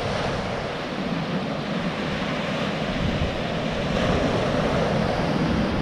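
Surf breaking and washing up a pebble shore in a steady rush, with wind blowing on the microphone.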